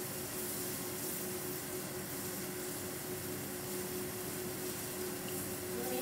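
Steady room tone: an even background hiss with a faint constant hum.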